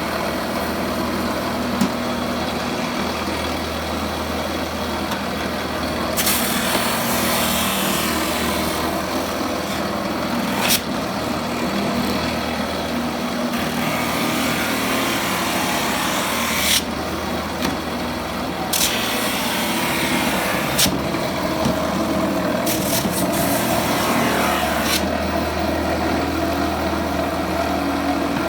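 Powered steel wire wheel running steadily, with several stretches of a few seconds each of harsher hissing as it scrubs paint and grime off a wooden beehive super.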